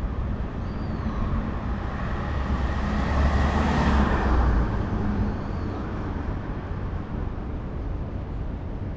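Road traffic: a vehicle passing by, its noise building to a peak about four seconds in and then fading back into the steady street rumble.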